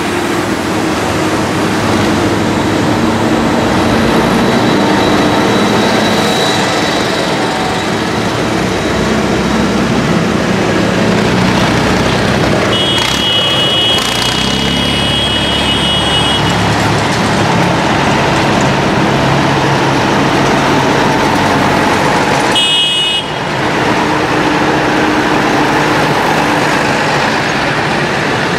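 Diesel engines of farm tractors and a self-propelled forage harvester running as they drive past one after another. A vehicle horn sounds for about three seconds near the middle, and again briefly later on.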